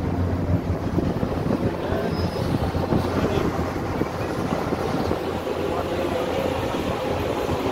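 Roll-on/roll-off ferry's diesel engines running with a steady low rumble as the ship comes in to berth.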